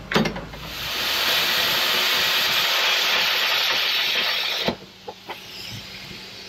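A click, then the steady hiss of an aerosol spray can being sprayed for about four seconds, stopping abruptly.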